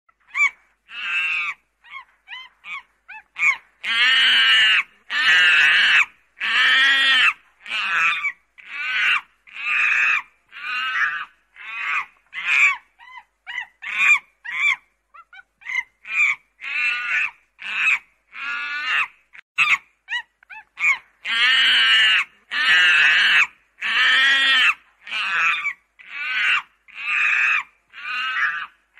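Monkey calls: a long run of shrill, pitched cries, about one a second, some short and some drawn out and louder.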